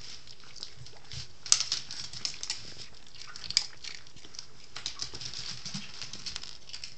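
Dog eating dry cereal: irregular crisp crunches and clicks, the sharpest about a second and a half in.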